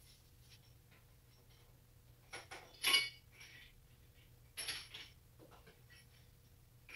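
Metal tools and bike parts clinking and clattering while hand work goes on, in a few irregular knocks. The loudest is about three seconds in.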